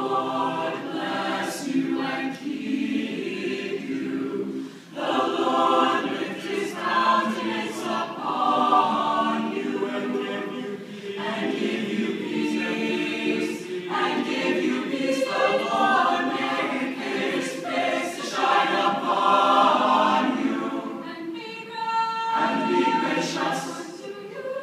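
Mixed-voice a cappella choir singing a slow sacred piece in harmony, held chords with short breaths between phrases.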